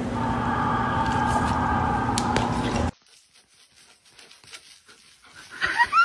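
A dog whining: a steady high whine that cuts off abruptly about three seconds in, then short rising whimpers near the end.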